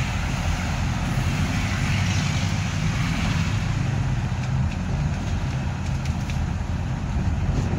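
Taxi in motion heard from inside the cabin: steady engine and road noise, strongest in the low end, with no break or change.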